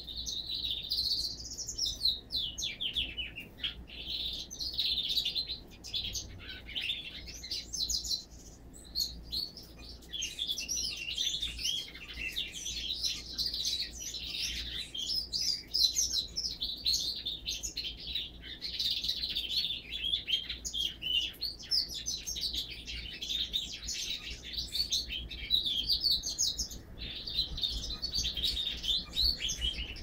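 Siskin × canary hybrid singing a long, fast twittering song in near-continuous phrases, broken by short pauses about 3 and 8 seconds in and again near the end.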